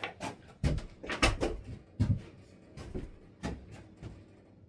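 Wooden frame pieces being handled and set down: a string of irregular knocks and clicks, wood on wood.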